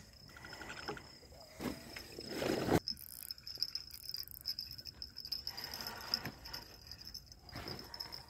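Crickets trilling in a steady, high, even tone, with handling noise from a fishing rod and reel: a rustling swell about two seconds in that cuts off suddenly, and two softer rustles later.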